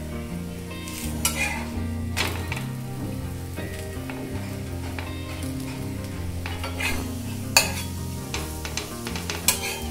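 Thalipeeth sizzling as it fries in butter on a tawa, with a steel spatula scraping the pan and clicking against it a few times. Background music with a stepping bass line plays throughout.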